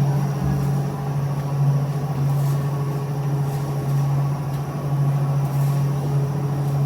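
Bakery machinery running with a steady low hum, such as an oven burner blower or a dough mixer motor, with faint clatter from the working bakery.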